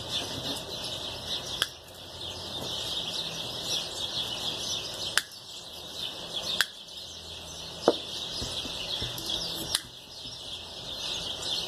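Wire cutters snipping through the strands of chicken wire, about five sharp clicks a second or more apart, over a steady background of birds chirping.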